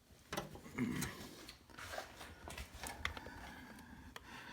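Faint handling noises: scattered clicks, rubbing and rustling, loudest in the first second or so.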